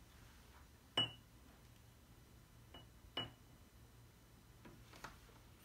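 Light clinks on the glass cup of vinegar while food colouring is added, the loudest about a second in and another about three seconds in, each with a short ring. A couple of fainter taps come near the end.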